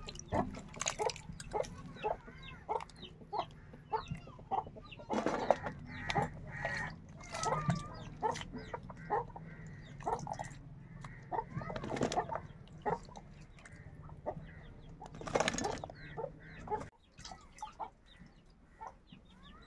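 Chickens clucking, short calls repeated every fraction of a second. A few louder swishes come from wet bitter gourd slices being handled in a steel bowl of water.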